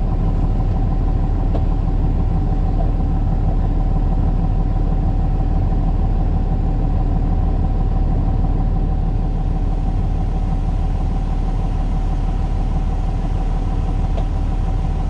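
Peterbilt 337 wrecker's diesel engine idling steadily, heard from inside the cab.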